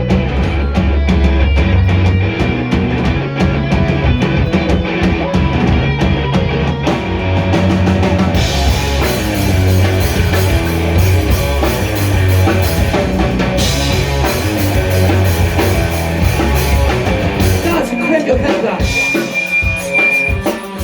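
Rock band playing live: electric guitar, bass and drum kit, loud and dense. Cymbals brighten the sound from about eight seconds in, and near the end the bass drops out, leaving separate drum hits.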